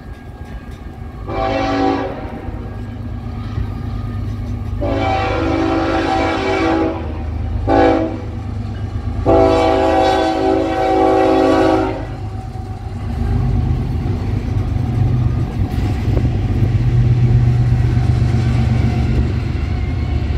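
A BNSF ES44AC locomotive's Nathan K5HL five-chime air horn sounds the grade-crossing signal: long, long, short, long. After the horn stops, the locomotives' diesel engines run with a steady low rumble and the wheels on the rails as they pass close by.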